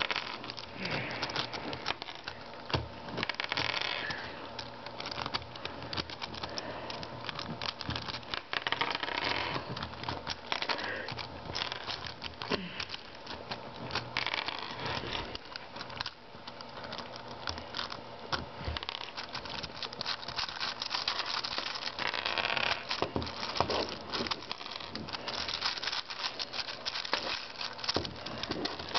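Plastic pieces of a 5x5 Rubik's cube clicking, scraping and rattling as the layers are twisted out of line and pieces are pried out one by one. The clicks come irregularly and often.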